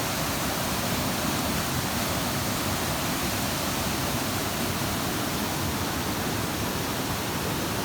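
Water rushing over a creek waterfall: a steady, unbroken rush of white water.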